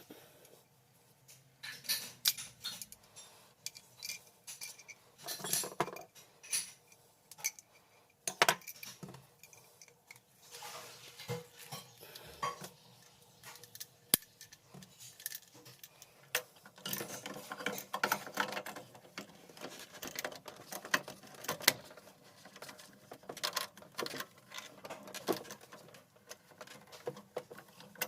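Irregular clicks, clinks and short rattles of tools and small metal and plastic parts being handled during boiler repair work.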